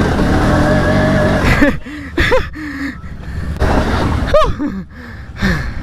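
ATV engine running hard under load, then easing off. As it does, a rider lets out several short strained grunts and exclamations.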